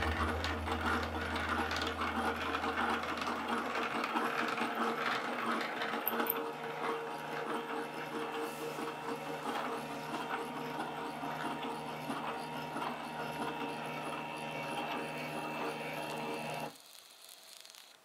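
Stepper motors of a homemade Raspberry Pi-controlled CNC rig, a small 28BYJ geared stepper and NEMA steppers, running test moves: a steady mechanical whir with several held tones. Music fades out under it in the first few seconds, and the machine sound cuts off about a second before the end.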